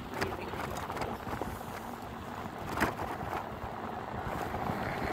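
Wind rushing over a handlebar-mounted phone's microphone and bicycle tyre noise as the bike freewheels downhill, with a single sharp knock about three seconds in.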